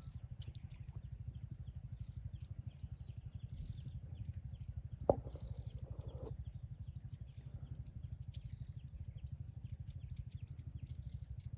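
A low, fast, even throb, like an engine running steadily, with a single sharp click about five seconds in and faint high chirps over it.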